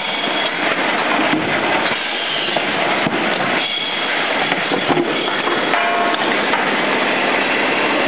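5-gallon water bottle decapping and washing line running: steady, dense machine clatter from the conveyor and machinery, with a few metallic knocks and brief squeals.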